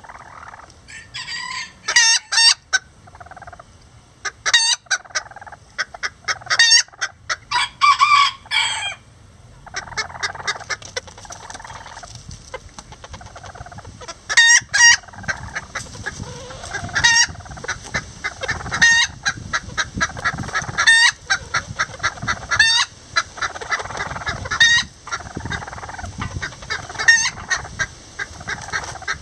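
Lavender Old English Game bantam chickens clucking close up. A cluster of short calls comes in the first few seconds, then from about halfway a short call roughly every two seconds over a fast run of soft clucks.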